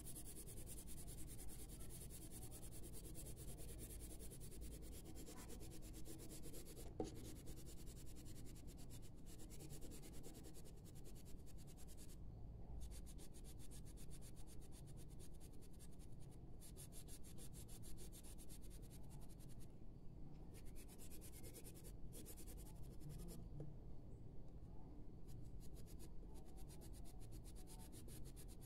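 Colored pencil rubbing across drawing paper in repeated shading strokes, faint, over a low steady hum.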